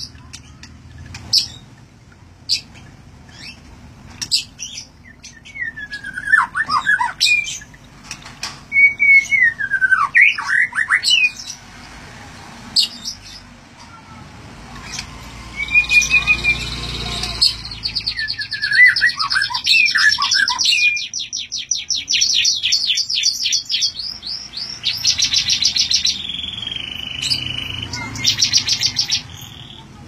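Kacer Thailand, a caged magpie-robin, singing loudly: varied phrases of falling whistled notes, then long, very fast high trills and rattles through much of the second half.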